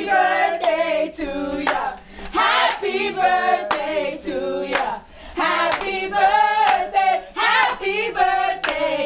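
A group of people singing together, with hand claps along the song.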